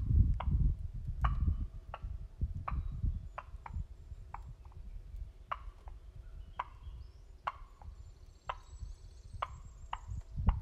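Wild turkey clucking: a series of short, sharp single notes at uneven spacing, roughly one every half second to a second, over a low rumble that is heavier at the start.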